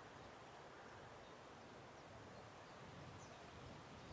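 Near silence: faint outdoor background hiss with no distinct event.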